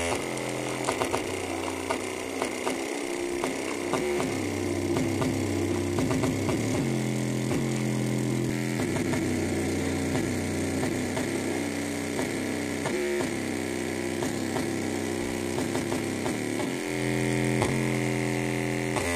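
Bass test: a small bare speaker driver playing bass-heavy music, its cone making large, visible movements. Low notes are held and change in steps, with many short clicks through them.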